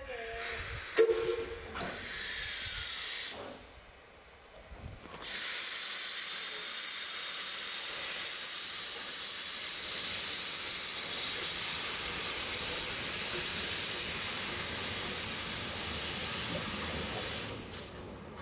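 Steam tank locomotive (C12 66) venting steam from its cylinder drain cocks as it starts to move: a sharp loud burst about a second in, a short hiss, then a long steady hiss that stops near the end.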